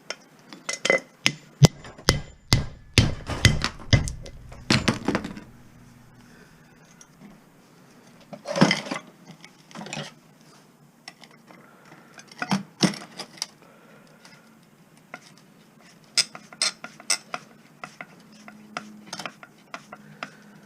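Hammer blows on scrap metal: a quick run of sharp metallic strikes over the first five seconds, then scattered single strikes and clinks as the piece is knocked apart.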